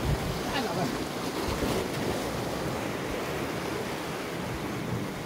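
Sea surf washing over a rocky shoreline, a steady rushing wash, with wind buffeting the microphone.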